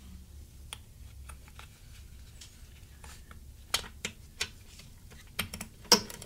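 Light clicks and taps of small metal parts being handled as the brass main jet is fitted back into a Briggs & Stratton mower carburetor, with a few sharper clicks in the second half.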